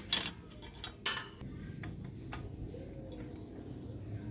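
Metallic clinks and clicks of a rusty bicycle chain being handled and pulled over the chainring. The sharpest are right at the start and about a second in, with a few lighter ones after.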